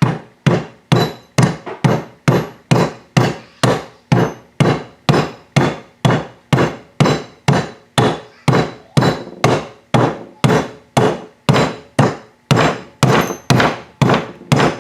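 Rubber hammer tapping a freezer-chilled main bearing into a 2001 Yamaha WR426F aluminium crankcase half, in steady, even blows about two and a half a second. The bearing is going in crooked, the mechanic thinks.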